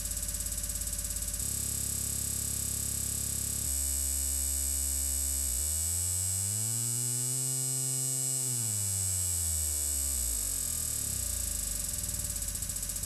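Electronic dance track played through DJ software effects: a beat loop cut ever shorter until it becomes a buzzing tone, which glides up in pitch, holds, then slides back down as the deck slows toward a stop.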